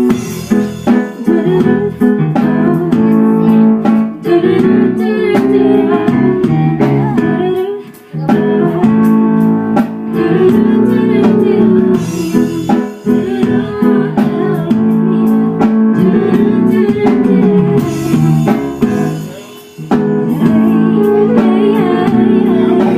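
A band's instruments playing music in rehearsal, with two short breaks, about a third of the way in and again near the end.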